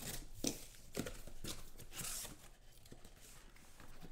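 Cardboard packaging being torn and handled as a box of trading cards is pulled from a sealed case, with a few sharp knocks and rustles in the first two seconds.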